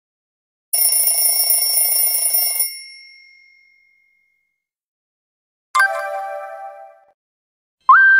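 Three short Nokia 7230 stock message alert tones played one after another, with silence between them. The first is a ringing, bell-like tone lasting about two seconds. The second is a chime with a sharp start that fades over about a second, and the third opens with a quick upward slide in pitch near the end.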